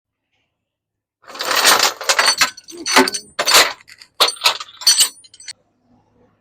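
Loud metallic clattering and clanking in a run of sharp bursts, starting about a second in and stopping about four seconds later.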